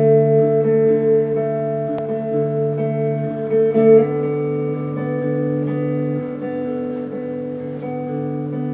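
Background music: a guitar playing slow, held chords, changing chord about four seconds in.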